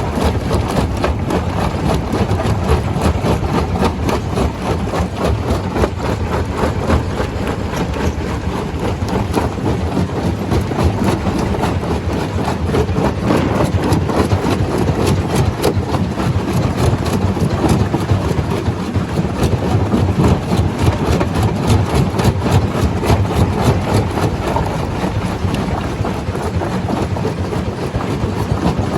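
Stone crusher running steadily while crushing rock: a continuous heavy mechanical rumble with dense, unbroken clattering.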